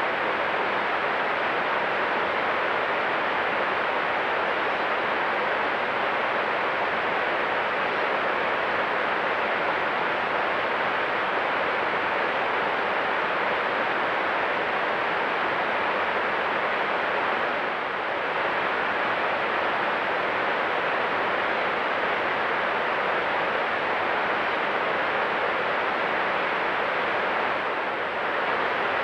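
Steady rushing of a stream running over rocks, with two brief dips in level.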